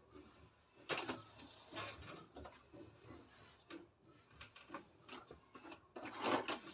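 Small plastic toy kitchen pieces being handled, giving faint irregular clicks and light clatter, with a louder burst of clattering near the end.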